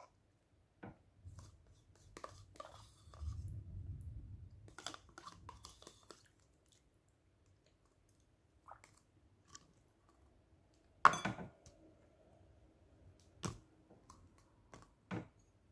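Metal spoon scraping and clicking against a plastic yogurt cup, with soft mouth sounds of eating. A few sharp clicks stand out in the second half, the loudest about eleven seconds in.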